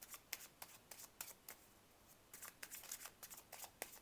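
A tarot deck being shuffled by hand: faint, irregular soft clicks and slaps of the cards against one another, a few a second, with a short lull about halfway through.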